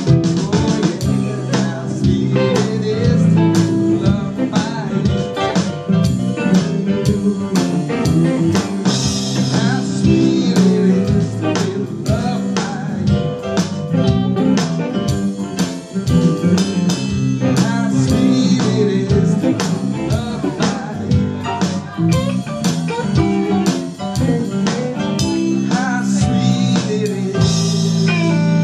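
Live band playing a blues number, with electric guitar and a drum kit keeping a steady beat.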